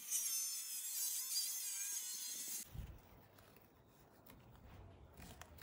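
Circular saw cutting through tape-covered plywood into the foam board beneath, running steadily and then stopping suddenly about two and a half seconds in. Faint knocks and rubbing from the cut-off plywood strip being handled follow.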